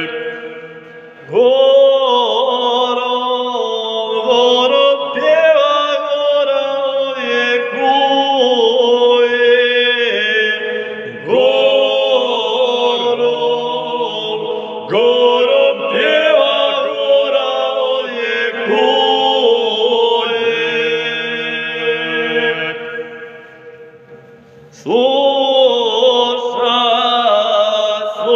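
Two male voices singing a Serbian folk song unaccompanied, in long held phrases in harmony. The singing pauses briefly about a second in and again near the end before a new phrase starts.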